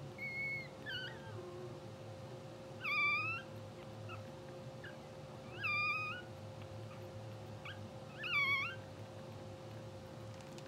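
Newborn English bulldog puppies squeaking in their sleep: short, high-pitched mewing cries. There are two faint ones near the start, then three louder ones about every two and a half seconds, each rising and falling in pitch.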